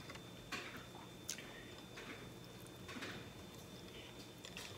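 Faint chewing: a few soft, scattered mouth sounds from a bite of food being chewed close to the microphone.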